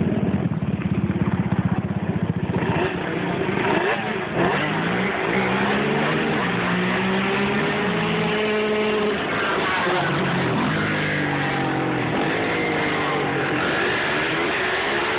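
Several quad ATV engines revving. A close engine putters with rapid pulses for the first couple of seconds. From about three seconds in, overlapping engine notes repeatedly rise and fall in pitch as the quads accelerate and shift.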